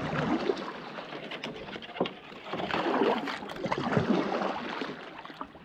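Kayak paddle strokes: the blade dipping and pulling through calm river water, the swish swelling and fading with each stroke every second or two.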